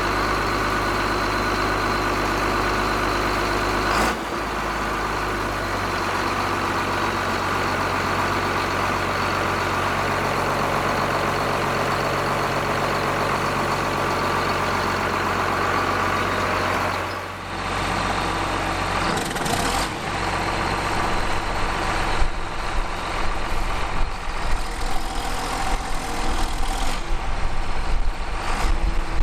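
John Deere 4755 tractor's diesel engine running steadily. About two-thirds of the way through the sound changes and becomes uneven.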